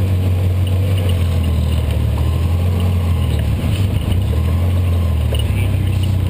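ATV engine running steadily at an even pitch while the quad creeps along a muddy trail, with a brief wobble in the sound a little under four seconds in.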